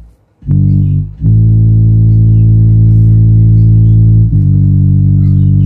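Bass-heavy music played loud through six ACR 6-inch subwoofers in plywood cabinets: a short low note, then a long held note for about three seconds, stepping to another note near the end.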